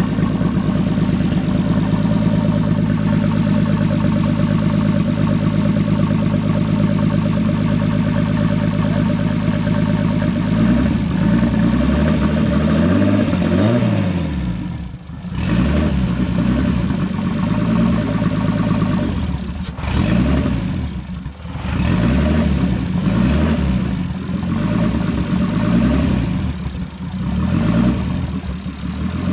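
BMW E30's turbocharged M50TU straight-six running: it idles steadily for about ten seconds, then is revved up and back down again and again.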